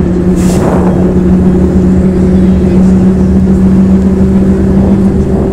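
Steady drone of a MAZ 105.465 city bus heard from inside while it drives, an even engine hum over road rumble. A brief rush of noise about half a second in.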